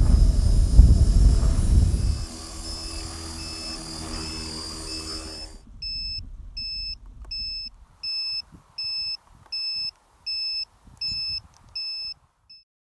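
Wind buffets the microphone over the steady whirring whine of an Align T-REX 450 Pro V2 electric RC helicopter's motor and rotor, which cuts off abruptly about five and a half seconds in. Then a high electronic beep repeats about ten times, roughly one and a half a second.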